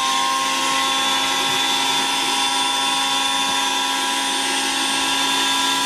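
Bosch VitaPower MMB 6174S 1200 W high-speed blender running steadily at one speed, grinding a thick pesto of carrot leaves, pumpkin seeds and garlic. It gives an even motor whine made of several steady tones over a whoosh.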